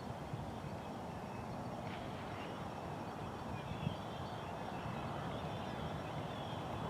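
Wind buffeting the microphone in a steady, uneven rumble, with faint short bird chirps high above it.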